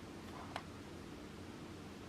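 A single light click about half a second in, over a faint steady low hum.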